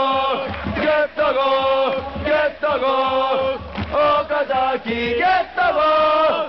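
A large crowd of Shimizu S-Pulse football supporters singing a player chant in unison, held sung notes over a steady low beat.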